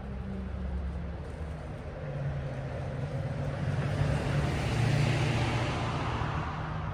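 A motor vehicle going past: a low engine hum under rising tyre and road noise that peaks about five seconds in and then begins to fade.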